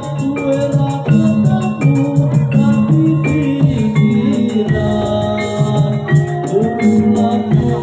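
Live Javanese gamelan music for a jaranan horse dance: struck metal instruments play a melody of held notes that step from one pitch to the next, over steady drumming.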